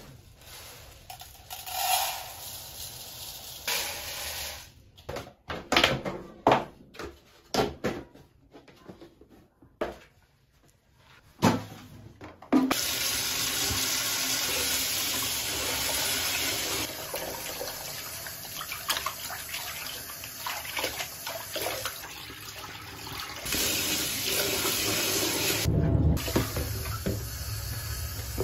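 Raw rice being scooped and poured into a plastic bowl, with short rattles and knocks. About halfway through a kitchen tap starts and runs steadily into the bowl of rice in a stainless steel sink, rinsing it, and near the end the rinse water is tipped out of the bowl.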